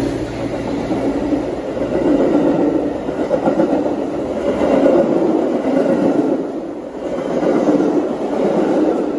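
Metra stainless-steel bilevel commuter cars passing at speed, a steady rumble and clatter of steel wheels on the rails that swells and eases every second or two as the cars go by.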